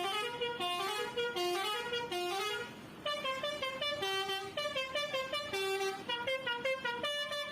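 A bus's multi-tone 'basuri' telolet horn playing a tune of short stepped notes. It pauses briefly about three seconds in, then starts another phrase.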